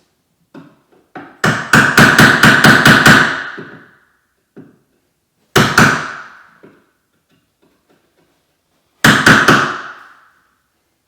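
Hammer blows, each ringing briefly: a quick run of about eight blows, then a single blow, then two or three more near the end.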